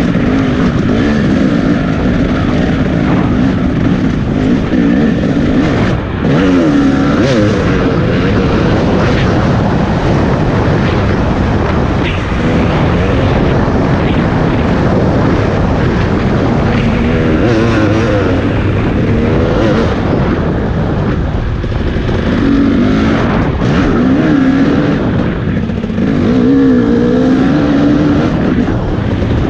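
Off-road motorcycle engine revving up and down repeatedly as it is ridden around a dirt track, with a continuous rushing noise underneath.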